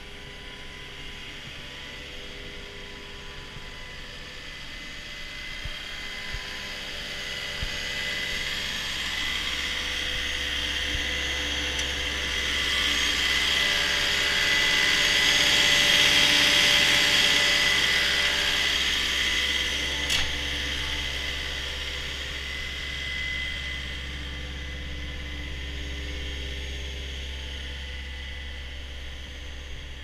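Caterpillar 242D skid steer loader's diesel engine idling steadily, louder through the middle as the open engine compartment comes close.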